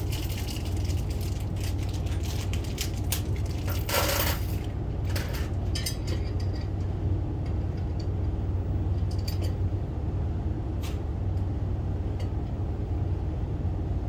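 Garage door bolts and metal hardware being handled, with scattered small clinks and clicks and a louder scrape about four seconds in, over a steady low hum.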